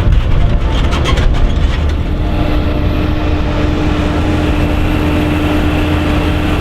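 Fendt Vario tractor's diesel engine running steadily with a deep rumble, and a steady whine coming in about two seconds in.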